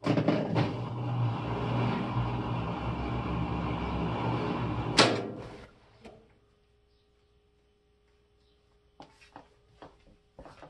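A GE GTW335 top-load washer runs with a steady low hum for about five seconds. It then gives one sharp click as its lid lock releases at the end of the cycle, and falls quiet. A few faint clicks follow near the end.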